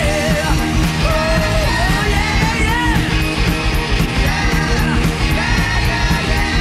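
Studio recording of a 1981 heavy metal band playing: distorted electric guitars, bass and a drum kit, with evenly spaced cymbal strokes and a melodic line gliding up and down over the band.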